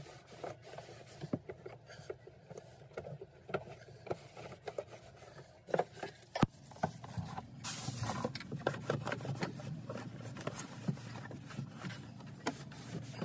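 Towel rubbing and wiping up spilled water on the wooden floor of a cabinet, with scattered small clicks, knocks and scrapes of handling and one sharper click partway through. A steadier low noise joins from about eight seconds in.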